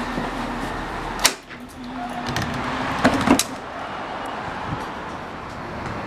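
Passenger doors of a Siemens-Duewag U2 light rail car opening with a sharp clunk about a second in, cutting off the steady hum heard inside the car. A few sharp knocks follow about three seconds in, then a steady outdoor background.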